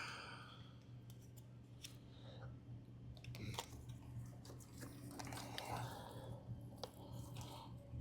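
Faint scattered clicks and rustles of small metal crimp pins and a plastic wiring connector being handled and pushed together, over a low steady hum.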